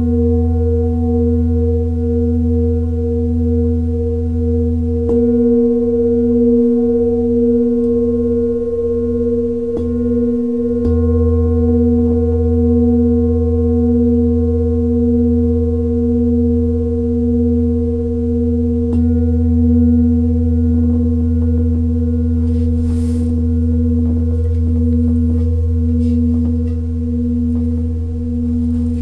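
Large metal singing bowl ringing on and on: a low tone under several higher overtones, the middle tones wavering in a slow pulse, at an even loudness throughout.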